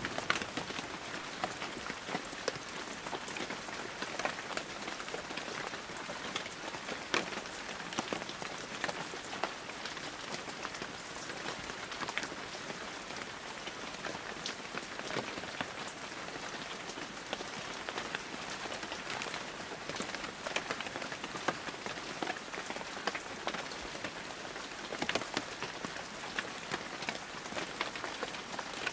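Steady rain falling on a hard surface, with many separate drops ticking through it.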